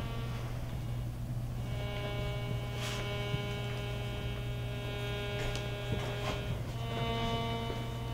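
A steady low hum runs throughout, with long held droning tones over it. One tone runs for about four seconds, then breaks off, and another starts near the end. A few faint clicks come in between.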